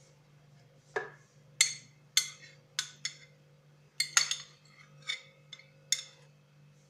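A metal spoon clinking against a plate as it scrapes minced parsley off into a food processor bowl: about a dozen sharp, irregular clinks, beginning about a second in.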